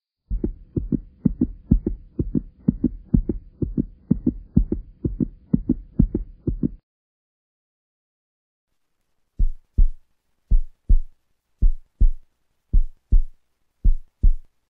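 Heartbeat sound effect: paired low thumps, lub-dub, at about two beats a second for six or seven seconds, then a pause of two to three seconds, then slower beats at about one a second.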